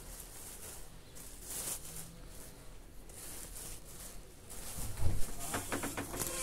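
Plastic bag and cloth rustling as they are handled, in several short bouts. A loud thump comes about five seconds in, followed by a few short high-pitched sounds near the end.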